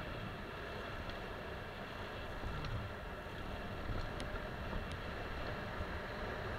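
Wind buffeting a helmet-camera microphone and bicycle tyres rolling fast over a dirt trail, a steady rushing noise, with a few sharp clicks from the mountain bike over bumps.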